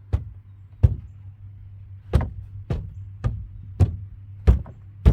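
About eight sharp knocks, unevenly spaced, as the wooden boards of an OverEZ chicken coop are forced into their tight-fitting slots.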